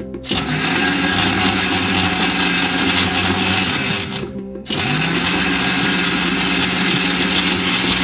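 Electric mixer grinder running with its small steel jar, grinding sugar and powder ingredients into a fine powder. It is run in pulses: the motor starts just as the sound begins, stops briefly about halfway, then starts again with its whine rising as it comes up to speed.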